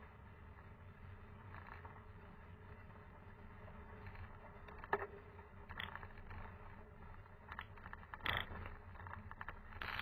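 Mountain bike climbing a gravel road, heard through a camera mounted on the bike: a steady low rumble of tyres on gravel and the rattling mount, with a few sharp clicks and knocks about halfway through and again near the end.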